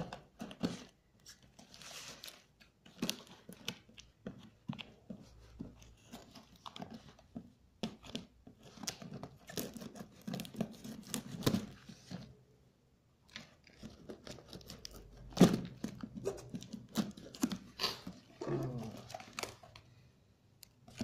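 Scissors slitting the packing tape on a cardboard box, with tape tearing, scraping and clicking against the cardboard, and the cardboard flaps rustling as they are pulled open. One sharp knock, the loudest sound, comes a little past the middle.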